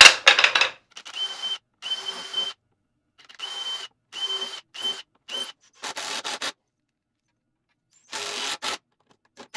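Cordless drill/driver driving screws into a wooden chair frame in a string of short trigger runs, each a brief whining spin. There are about seven in the first two-thirds, a pause, then two more near the end. A short clatter of wooden pieces is heard at the very start.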